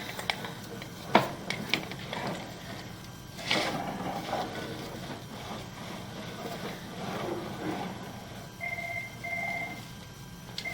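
A few sharp knocks and clicks, a short rustling burst, then near the end a pair of short electronic beeps.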